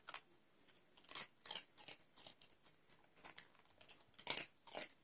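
A Jack Russell terrier crunching dry kibble: scattered, irregular crisp crunches, the loudest near the end.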